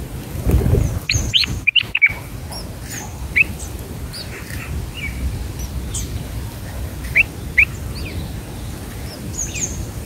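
Red-whiskered bulbul chirps at the nest: short, high, sweeping notes, a quick cluster about a second in, then single ones every second or two. A brief low rumble sounds about half a second in.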